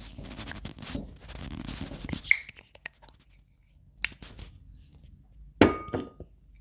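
Glass Snapple bottle and its metal cap being handled: a couple of seconds of scraping and twisting, a few sharp clicks, then a loud clink with a short ring near the end.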